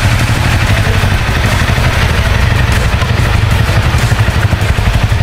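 Motorcycle engine running, a steady low drone with a rapid throb.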